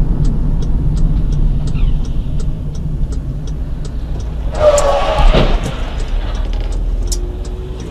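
Car driving, heard from a dashcam: a steady engine and road rumble with faint regular ticking about three times a second, and a louder burst with a brief pitched tone about halfway through.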